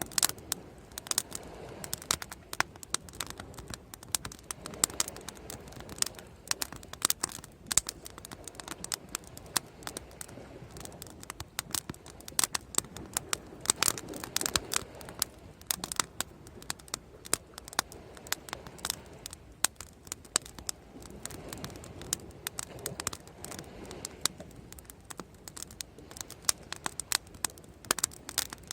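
Bonfire crackling, with irregular sharp pops and snaps many times a second over a soft low rushing sound that swells and fades every few seconds.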